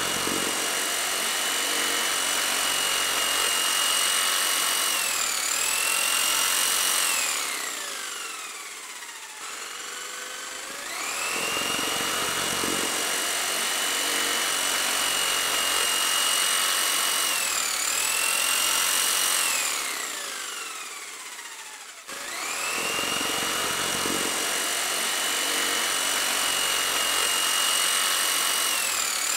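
A looped motor whine, like a power tool's, that winds up, holds steady for several seconds with a brief dip, then winds down. It repeats about every eleven seconds, restarting about eleven and twenty-two seconds in.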